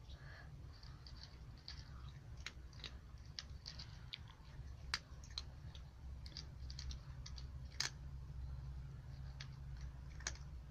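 A cat crunching dry kibble: irregular, sharp little crunches, the two loudest about five and eight seconds in.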